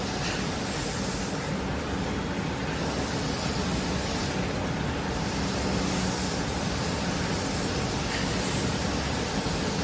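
Spray painting production line running: a steady machinery hum under a high hiss of spraying that swells and fades several times.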